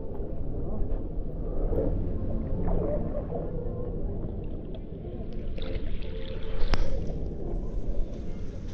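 River water sloshing and lapping around a camera held at the surface by a swimmer, a low, muffled rumbling as the microphone rides at and just under the waterline. A sharper splash comes about two-thirds of the way through.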